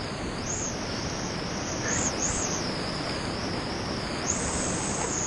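Steady rush of a big whitewater river's rapids, the brown, heavily churning current running high.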